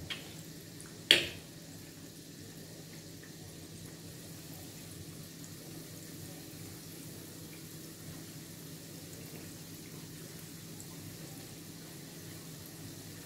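Ring-shaped dough (anise rosquillas) frying in a shallow pan of hot oil: a steady sizzle, with one sharp click about a second in.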